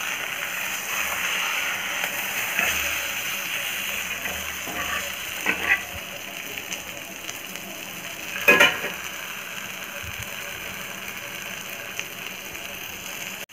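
Marinated whole fish sizzling in shallow oil on a flat tawa, a steady hiss as its second side fries. Two brief scrapes or clinks of the metal spatula cut through, about halfway and again a little later, the second one louder.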